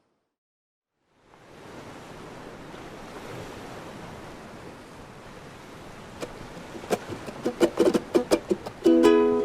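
Silence for about a second, then ocean surf fades in as a steady wash of breaking waves. From about six seconds in, plucked ukulele notes enter over the surf, more and more of them, ringing into a sustained chord near the end.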